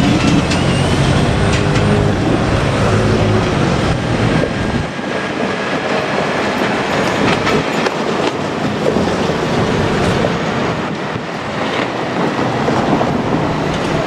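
Two-car KiHa 47 diesel railcar passing close by, its diesel engine loud and low at first, dropping away about five seconds in. Wheel clatter over the rail joints and rolling noise carry on after.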